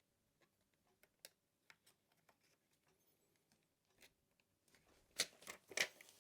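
Small plastic and metal clicks and taps as a laptop memory module is handled at its slot, then two sharp clicks about half a second apart near the end.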